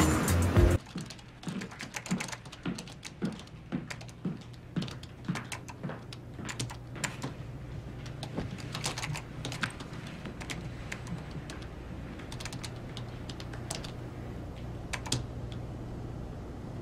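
Typing on computer keyboards: quick, irregular key clicks, thickest in the first half and sparser later.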